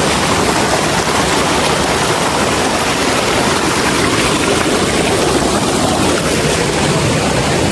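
Steady rush of water from a rocky stream pouring over a small waterfall.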